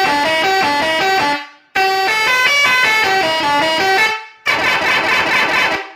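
Pakistani-type 'Badshah' musical pressure horn for trucks playing a tune of quick stepped notes, sounded in three blasts with short breaks between them and cut off near the end.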